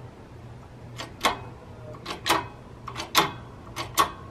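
Sharp metallic clicks, mostly in close pairs about once a second, from working a bottle-jack shop press and a 17 mm impact socket on a jackshaft bearing that is going in crooked.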